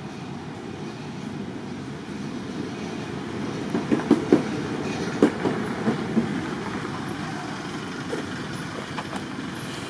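Steady low rumble, with a handful of short, sharp knocks clustered around the middle.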